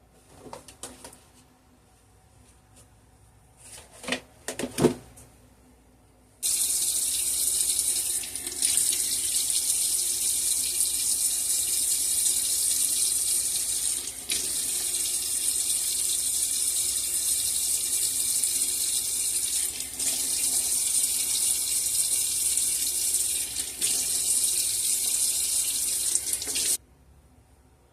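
Steady rushing water, like heavy rain or a running tap, starting abruptly about six seconds in and cutting off suddenly near the end. It is preceded by a few short clicks and knocks.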